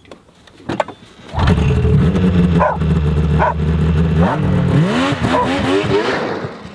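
Yamaha SX700R snowmobile's three-cylinder two-stroke engine running, coming in suddenly about a second and a half in, then revved in several quick rising blips before dropping away near the end.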